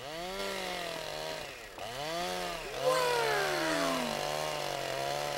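Chainsaw running as it cuts into a tree trunk. It revs up at the start and again about two seconds in, then runs steadily.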